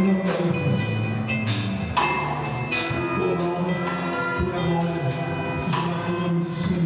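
Live worship band music: a drum kit with repeated cymbal hits over sustained pitched chords, with no singing.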